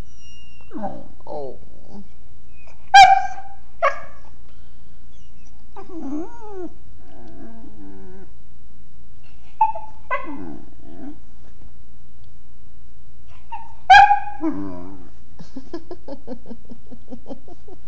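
English Mastiff puppy "talking": a run of whines that slide up and down in pitch, broken by short sharp yips. The loudest yips come about three seconds in and again near fourteen seconds, with smaller ones between.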